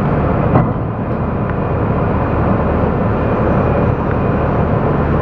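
Liebherr R974 C crawler excavator's diesel engine running steadily while the boom and bucket are moved hydraulically, with a brief knock about half a second in.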